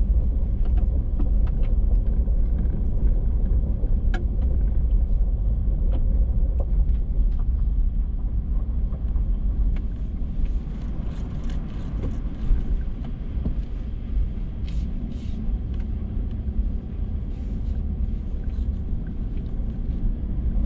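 Vehicle driving slowly over a rough gravel road: steady low road rumble with scattered small clicks and knocks.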